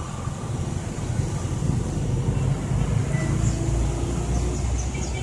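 Steady low outdoor rumble, mostly deep noise without a clear engine tone, growing a little louder about a second in.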